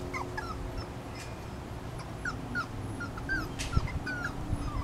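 Young puppies whimpering: short, faint, squeaky whines, several a second.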